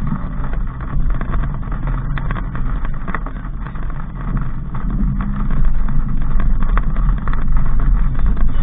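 Daihatsu Sigra under way: a steady low rumble of engine and road noise with scattered light clicks and rattles, growing a little louder about halfway through.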